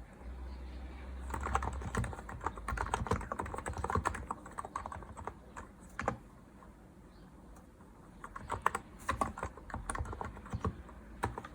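Typing on a Hanmumu GK868B keyboard: quick runs of key clacks that thin out for a couple of seconds past the middle, then pick up again.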